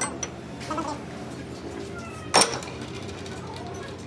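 Metal parts clinking and knocking, a few light knocks near the start and one sharp, loud clank about two and a half seconds in, over a steady low hum.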